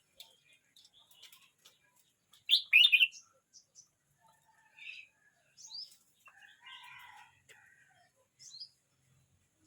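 Red-whiskered bulbul singing: a loud burst of quick, gliding whistled notes about two and a half seconds in, then shorter, quieter phrases scattered through the rest.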